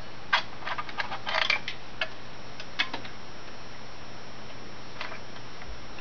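Light clicks and taps of plastic wire connectors being worked off a dishwasher's control panel. There is a quick run of clicks in the first two seconds, then a few scattered ones.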